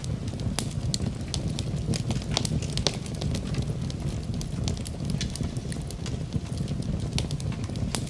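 Wood fire crackling in a fireplace, with frequent irregular sharp pops and snaps over a steady low rumble.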